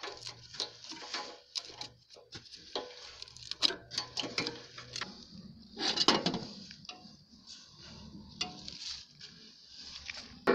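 Irregular light metallic clinks, taps and knocks, like parts of a feed chopper being handled and worked on with hand tools, with a faint low hum that stops about halfway through.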